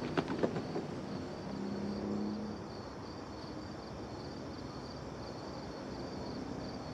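Crickets chirping in a steady, evenly pulsing trill over a low even hiss, with a few sharp clicks near the start.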